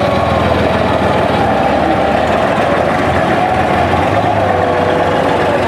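Tracked infantry fighting vehicle driving over dirt: its engine running loud and steady under load, with the metallic clatter of its tracks and a wavering whine over the top.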